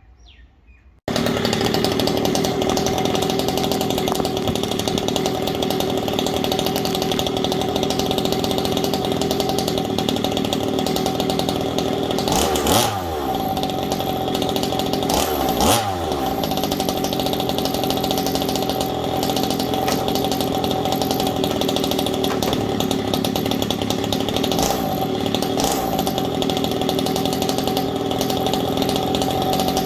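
Small two-stroke petrol engine of a 1/5-scale MCD RC rally car running at a steady idle, cutting in abruptly about a second in. Two quick throttle blips near the middle briefly raise the pitch.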